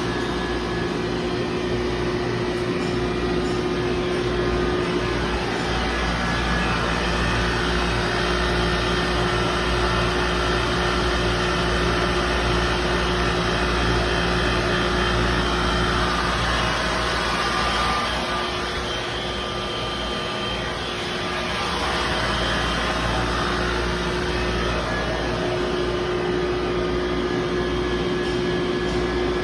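Dual-circuit R410A industrial water chiller of 75,000 kcal running on test after a service: a steady mechanical hum with a constant tone, dipping a little in level about 18 seconds in and coming back up a few seconds later.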